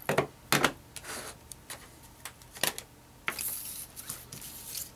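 Silver coins in clear plastic holders and capsules being set down and moved about on a wooden desk: a handful of sharp plastic-and-metal clicks and taps, with a brief sliding rustle a little past the middle.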